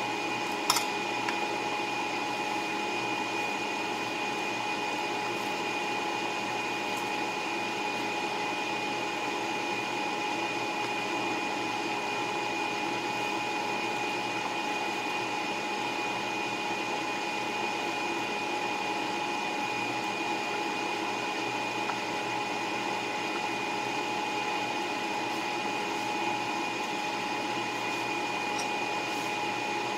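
Electric fan running steadily, a constant whirring hum with a fixed whine in it. A brief click sounds about a second in.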